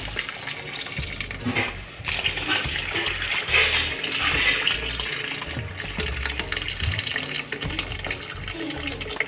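Boiled sea moss liquid poured from a pot through a fine mesh strainer into a stainless steel bowl, a steady splashing pour that is heaviest a few seconds in.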